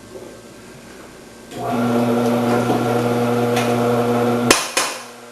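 Electric motor of a commercial vegetable-cutting machine starting about a second and a half in and running with a steady hum for about three seconds, then switched off with a sharp click.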